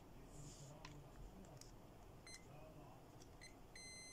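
Digital multimeter's continuity buzzer beeping as the probes touch IC pins: two short high blips about a second apart, then a steady beep starting near the end, the meter signalling a short between the two pins.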